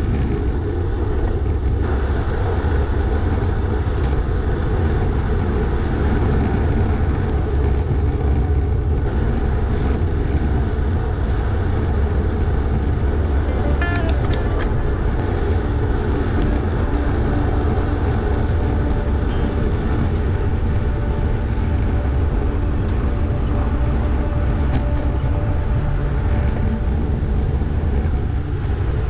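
Steady wind rush buffeting the microphone, with road noise, while riding a road bike.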